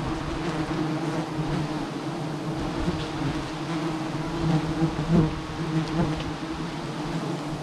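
A swarm of giant honeybees (Apis dorsata) buzzing in a steady hum around their comb, stirred up as the comb is cut away. A few light knocks, the loudest about five seconds in.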